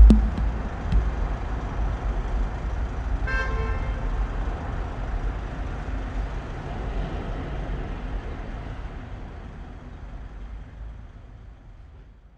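The last hit of a live band's song ringing out, a noisy wash that fades slowly away to silence. A short horn-like toot sounds about three and a half seconds in.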